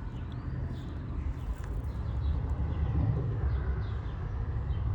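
Low rumble of road traffic, swelling about two seconds in, with faint short chirps above it.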